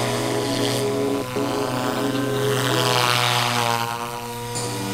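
Goosky RS4 electric RC helicopter flying aerobatics: a steady whine from the motor and rotors that swells and bends in pitch around the middle.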